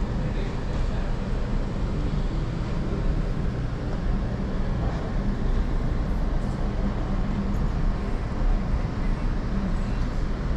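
Steady low rumble of background noise with no distinct events, heaviest in the bass.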